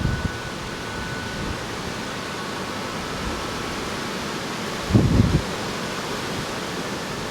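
Steady outdoor hiss with wind buffeting the microphone in low rumbling gusts, briefly at the start and again about five seconds in. Faint ringing tones of wind chimes sound now and then.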